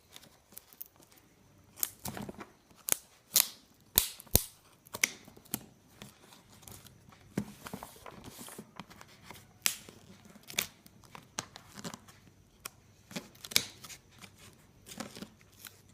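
A shipping parcel being opened by hand: packing tape and wrapping tearing and crinkling, with irregular sharp clicks and knocks of the cardboard box.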